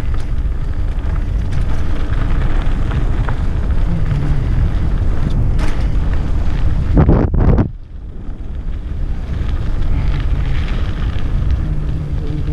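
Wind buffeting the microphone of a head-mounted camera on a mountain bike descending a dirt forest trail, mixed with the rumble and rattle of the bike over the ground. It is a steady rushing noise, with a louder rush about seven seconds in that cuts off suddenly into a brief quieter spell.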